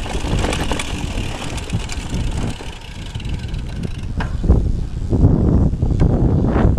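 Mountain bike rolling fast down a dirt singletrack: wind rumbling across the rider-mounted camera microphone and tyres on dirt, with sharp clattering knocks from the bike over bumps in the second half.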